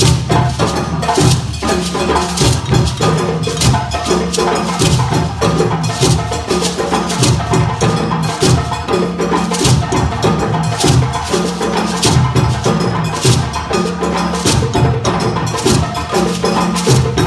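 A group of African hand drums, djembes, playing together in a dense, driving rhythm, with sharp high slaps over deep low drum notes.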